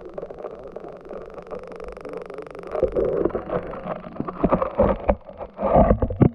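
Muffled water noise picked up by a submerged camera. From about three seconds in come irregular knocks and bumps that grow louder toward the end.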